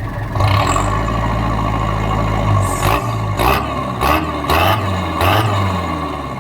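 Pickup truck engine idling through an aftermarket exhaust muffler, then blipped about five times in quick succession from about three seconds in.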